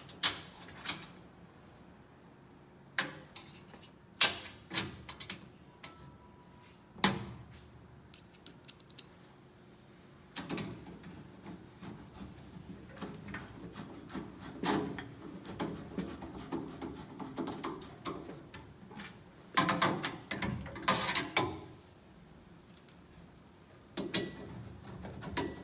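Metal hinge clips being fitted onto a door's hinges by hand: a series of sharp clicks and knocks, then stretches of handling and rubbing of metal parts, with a louder cluster of clicks about twenty seconds in.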